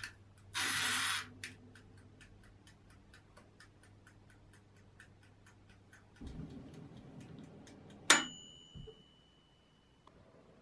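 Mechanical timer dial of a small countertop electric oven being wound with a short rasp, then ticking about four times a second over a low hum. About eight seconds in the timer bell rings once with a sharp ding that fades over a couple of seconds, the signal that the set time has run out.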